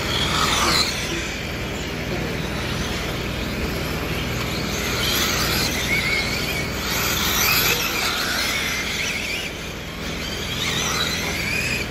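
Electric 1/7-scale RC race cars passing on a paved track, their brushless motors and drivetrains giving a high whine that rises and falls as each car goes by. The whine is loudest about a second in, through the middle, and again near the end.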